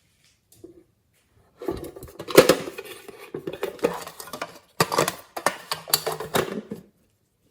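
Hard objects clinking and scraping against a container, in two spells of dense clatter with a short break between them.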